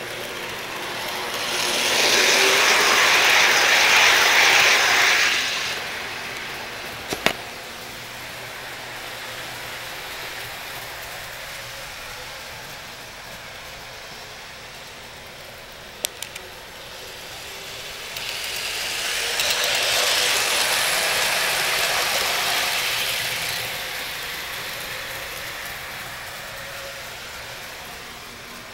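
O-scale model trains rolling past close by, a rushing rumble of wheels on the rails that swells and fades twice as trains go by. A couple of sharp clicks come between the two passes.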